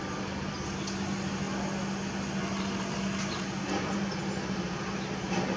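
C-130 Hercules transport aircraft flying overhead, its four turboprop engines making a steady drone with one held low tone.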